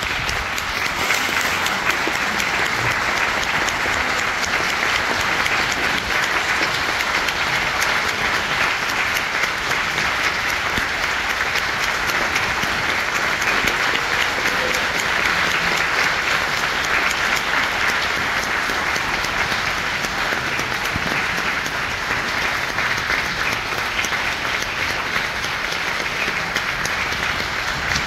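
Audience applauding: steady, dense clapping at an even level.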